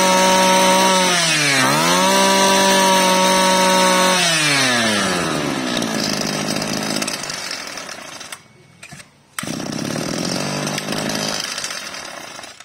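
Komatsu Zenoah G2KC 23cc two-stroke brush-cutter engine revved high, dipping once about a second and a half in and revving again, then dropping back to idle around four seconds in. It runs on at a low idle, cuts out briefly around eight seconds, and dies away near the end.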